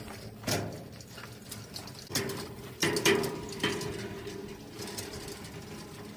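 Galvanized steel water trough rattling and knocking on a metal-mesh garden cart pulled over bumpy grass, with a handful of sharp clanks, several of which leave the trough ringing briefly; the loudest come about three seconds in.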